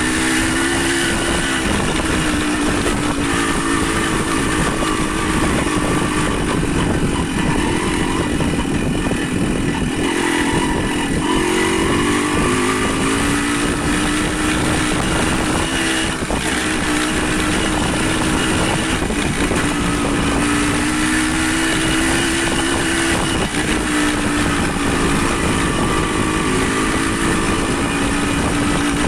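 Motorcycle engine running steadily while riding, its pitch drifting up and down every few seconds, over a constant rushing noise.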